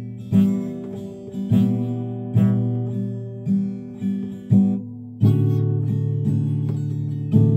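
Acoustic guitar strumming chords with no voice: single strokes that ring and fade for about five seconds, then steadier, busier strumming on a new chord.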